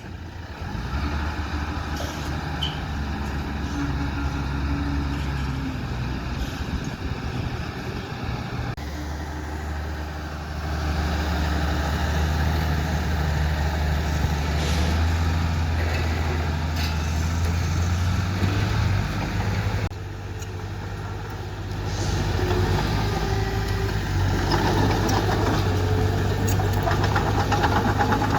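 Diesel engine of heavy earthmoving machinery running steadily with a deep hum; the sound shifts abruptly a few times, around a third of the way in and again near two thirds.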